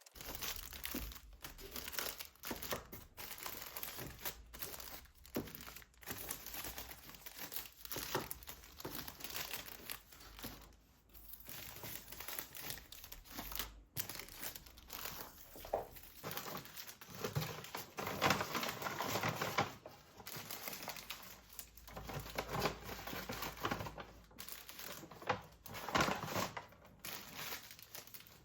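Packaging being handled: irregular crinkling and rustling, with some tearing.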